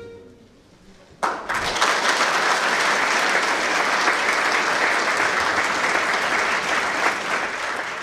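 The song's last note fades out, and about a second in an audience starts applauding all at once, with steady, dense clapping that carries on.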